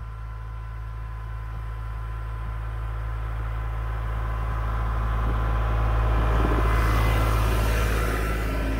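A vehicle engine running steadily, growing gradually louder and peaking about seven seconds in.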